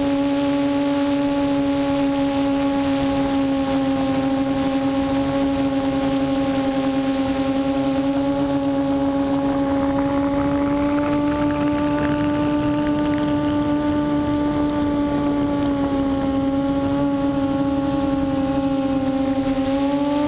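QAV400 quadcopter's 1100 kV brushless motors and propellers humming steadily, heard from the camera on board, the pitch wavering slightly up and down with throttle.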